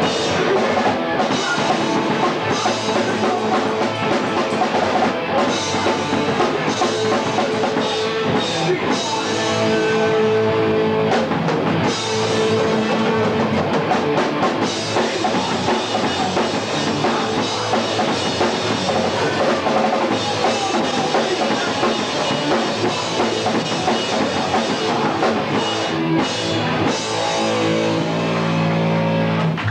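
Hardcore punk band playing live: distorted electric guitars, bass and a drum kit played hard and loud, picked up by a home camcorder's microphone. Near the end the band holds a sustained chord.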